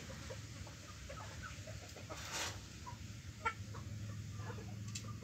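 Chickens clucking faintly in the background in short scattered calls, over a low steady hum, with one louder call-like sound about two seconds in.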